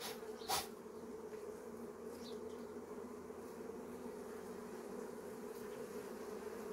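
Honeybees humming steadily around an apiary hive, with two short clicks about half a second in.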